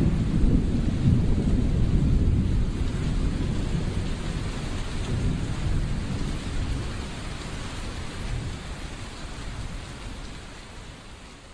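Thunderstorm sound effect: deep rolling thunder over a wash of rain, fading out slowly.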